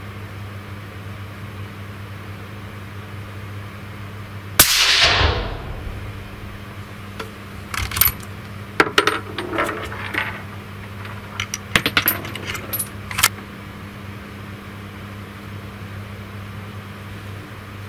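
A single suppressed rifle shot from a Blaser R8 in .308 Win. with a freshly cleaned Hausken JD 224 XTRM suppressor, about 103 dB(A) at the meter, with a short echoing tail, over a steady low hum. A few seconds later comes a quick series of metallic clicks and clinks from the rifle's action being worked and the empty case landing.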